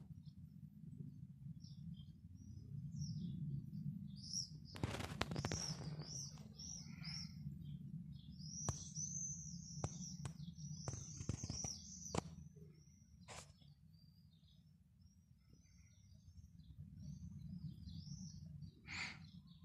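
Small birds chirping in quick, high, repeated notes, with a busy run of calls in the middle. Under them is a steady low rumble, and a few sharp clicks come through, one near the end.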